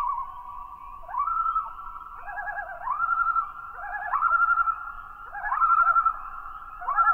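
Common loons calling: repeated yodel-like phrases, each a rising note followed by quick wavering notes, coming about every second and a half.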